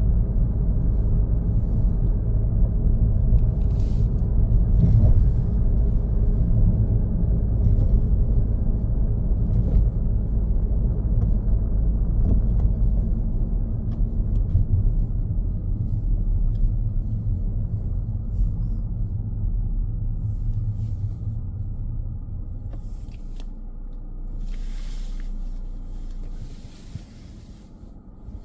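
Car driving on a road: a steady low rumble of engine and tyres that grows quieter in the second half and drops off further near the end.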